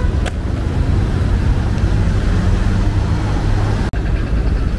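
Steady low rumble of outdoor city noise, with a short click about a quarter-second in and a brief dropout near four seconds.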